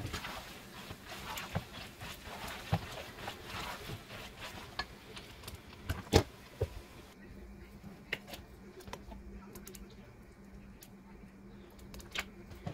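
Plastic spatula stirring and scraping macaroni and cheese in a nonstick pot, with scattered clicks and knocks of the utensil against the pot. The loudest knock comes about six seconds in, and a faint low hum runs through the second half.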